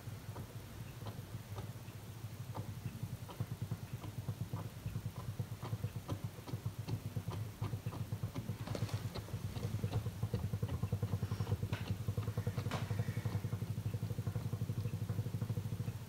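Electriq EQDWTTGF tabletop dishwasher running its wash cycle: a steady low pump hum with a rapid flutter, water spraying inside and scattered light ticks. It gets louder about ten seconds in.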